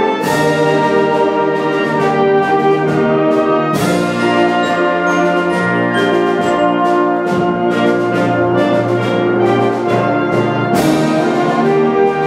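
Wind band playing: woodwinds and brass in full sustained chords. Percussion strikes ring out just after the start, about four seconds in, and near the end.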